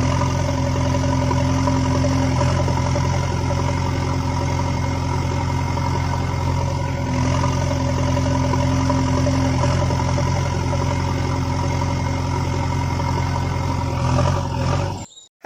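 A tractor engine idling steadily, cutting off abruptly near the end.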